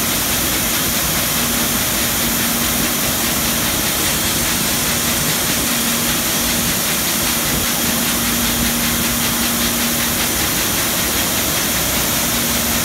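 Muratec 802HR air-jet spinning machine running: a steady, loud mechanical hum under strong hissing, with a steady low tone that fades in and out.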